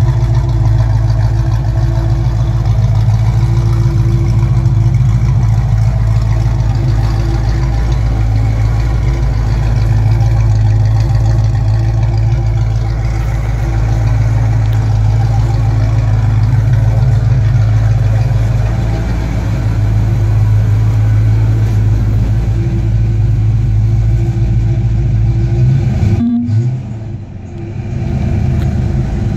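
Fox-body Ford Mustang engine idling steadily through a straight-piped exhaust shortly after a cold start, a loud, even low note. Near the end the sound briefly drops and goes muffled, then comes back.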